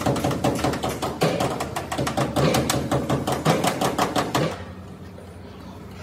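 Rapid hammering, several strikes a second, that stops suddenly about four and a half seconds in, leaving a low steady hum.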